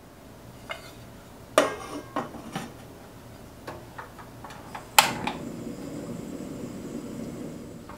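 A few metal knocks and clanks from an aluminium steamer pot on a portable gas stove. About five seconds in, a sharp click as the stove's knob is turned and its igniter sparks, and the burner lights and runs with a steady low rush of gas flame.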